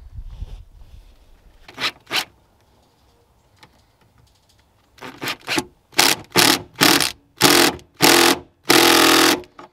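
Cordless drill-driver with a socket driving a bolt through a ground-wire eyelet into the truck body, run in short trigger bursts: two early, then a quick string of about eight and a longer final run as the bolt seats.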